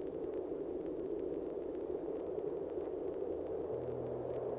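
Opening of a synthesized ambient track: a steady wash of noise sitting in the low-middle range, with faint crackles through it. Near the end a low sustained drone note fades in.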